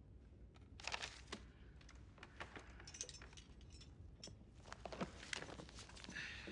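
Faint rustling and crackling of parchment and stiff book pages being handled and turned, in several short bursts with light clicks between.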